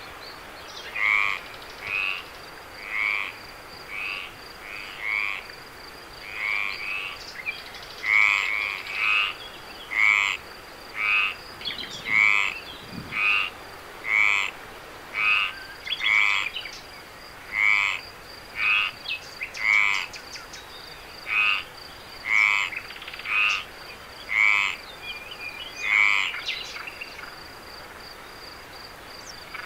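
A frog calling over and over, one short rattling call about every second, with a steady high insect trill behind it.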